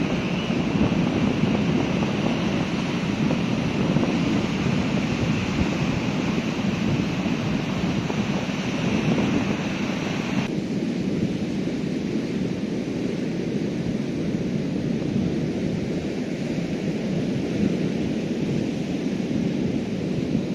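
Heavy monsoon surf breaking and strong wind buffeting the microphone in a steady rumbling wash. About halfway through, the hissing upper part cuts off suddenly and a lower rumble is left.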